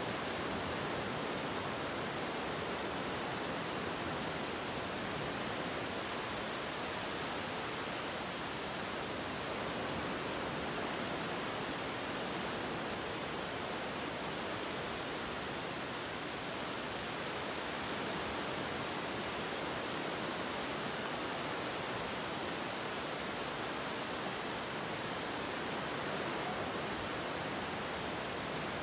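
Steady, even rushing noise that holds level throughout, with no swells, strokes or clicks.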